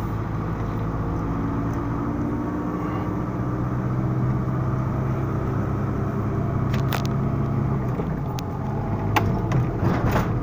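Car engine and road noise heard from inside the cabin while driving at a steady pace, with a few sharp clicks in the second half.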